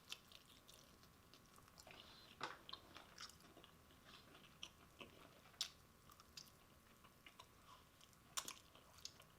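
Faint chewing and biting of fried chicken wings: scattered wet mouth clicks and small crunches at irregular intervals.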